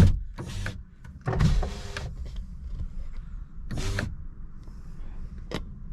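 A vehicle's electric starter motor cranking in several short bursts, with the engine not catching: it is a first start after sitting unused for almost a year.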